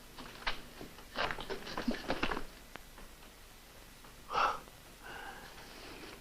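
Breathy sobbing and sniffling: short gasping breaths in clusters, with a stronger sob a little past four seconds in and a faint held vocal moan near the end.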